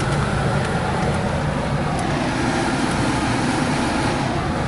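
Steady low rumble and hiss of a car idling, heard from inside the cabin, with a few faint clicks.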